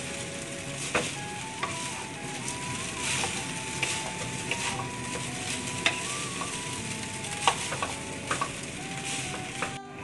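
Wooden spatula stirring and turning cooked rice in a pan, scraping the pan with a light sizzle, with several sharp knocks of the spatula against the pan.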